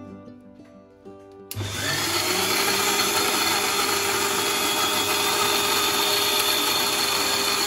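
Dynamix mixer-grinder motor switched on about a second and a half in, spinning up quickly and then running steadily at full speed, blending soaked cashews, coconut, jaggery and cocoa into a thick paste in its steel jar.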